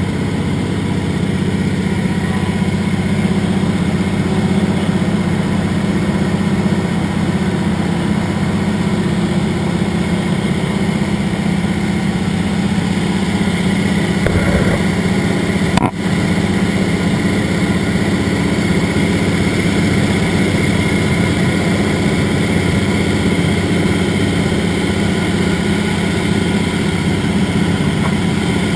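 Float plane's engine and propeller running steadily in flight, heard from inside the cabin, with a short click about sixteen seconds in.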